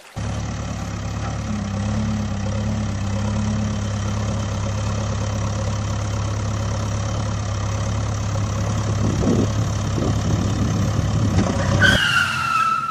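Backhoe loader engine running steadily at a low, even pitch. It starts abruptly and cuts off about twelve seconds in, followed near the end by a short falling whistle-like tone.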